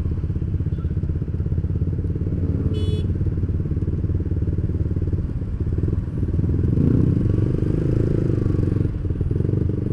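Several motorcycle engines idling close together in stopped traffic, a steady low rumble that swells a little about seven seconds in. A short high-pitched beep sounds about three seconds in.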